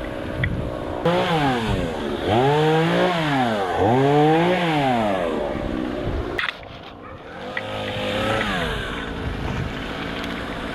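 Two-stroke chainsaw engine revving up and down about three times in a row, falls away suddenly about six seconds in, then revs once more.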